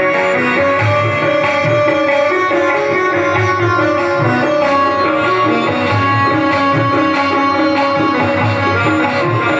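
Indian-style instrumental music: held melodic notes over a steady, regularly repeating hand-drum beat.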